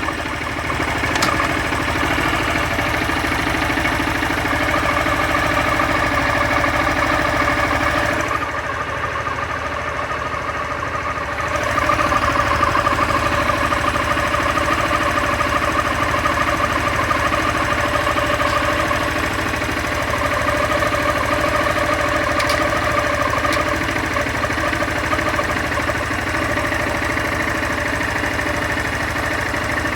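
Honda CG 160 Fan's single-cylinder four-stroke engine idling with a steady rattling mechanical noise. The noise dips for about three seconds near a third of the way in, then comes back louder; the owner suspects a fault in the clutch assembly.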